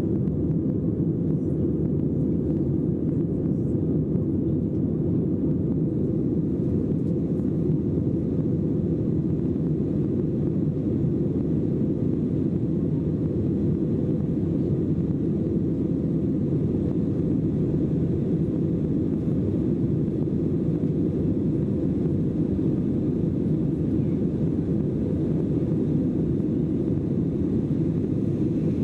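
Steady, low cabin noise of a jet airliner climbing after take-off: engine and airflow noise heard from inside the passenger cabin, unbroken and dull.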